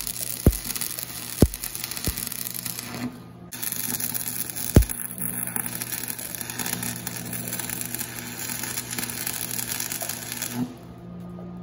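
Arc welding a steel brake rotor into a steel drum: the welding arc crackles steadily, breaking off briefly about three seconds in and again near the end. A few sharp pops and a low steady hum run under it.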